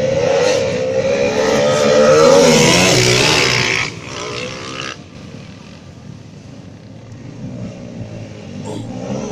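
Tuned drag-racing motorcycle engine revving hard at high speed, loudest for the first four seconds, then dropping away sharply. Engine noise builds again near the end.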